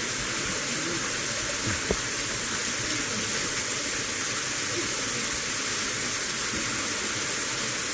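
Small waterfall pouring steadily over rocks with a constant rushing hiss, and a single short knock about two seconds in.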